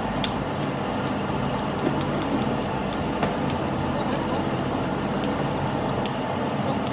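Steady rushing, machine-like noise with a low hum and a few light clicks.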